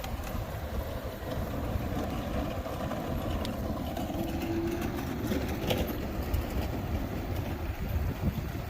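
Strong gusty wind buffeting the microphone while riding, a steady low rumble that flutters in loudness.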